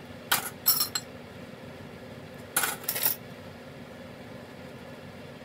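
Metal cutlery clinking as rinsed silverware is dropped into a dish drainer. The sharp chinks come in a pair just after the start, another pair about two and a half seconds in, and one more at the very end.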